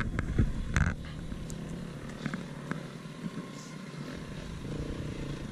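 Off-road motorbike engine running at a distance, a low steady rumble, with a few knocks in the first second.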